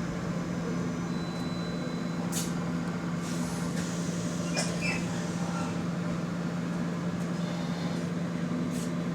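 A steady droning hum from an unidentified unit behind a seat inside a bus, holding one pitch, with a few faint rattles and clicks from the bus around it.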